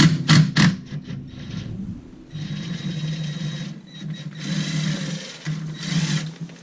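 Cordless power driver turning the clutch tool's bolt in the centre of a Can-Am Maverick X3's CVT clutch during a belt change. A few sharp loud hits near the start are followed by three short runs of steady whirring.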